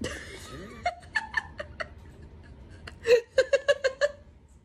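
An adult laughing in short rapid bursts, ha-ha-ha pulses coming twice: a quieter run about a second in and a louder run about three seconds in.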